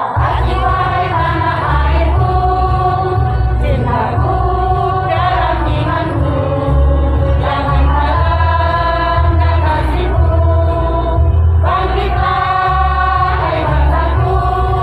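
Women's choir singing a song in unison, holding long sung notes in phrases with short breaks between them, over a heavy low accompaniment.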